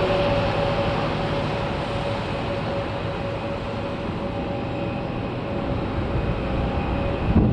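Airbus A319-112's CFM56 turbofan engines running: a steady rumble with a held whine. It eases slightly in the middle and grows again near the end.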